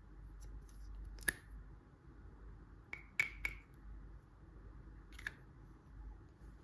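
Five sharp clicks and snaps of small hard plastic toy pieces being handled: one about a second in, three in quick succession around the middle, and one more near the end.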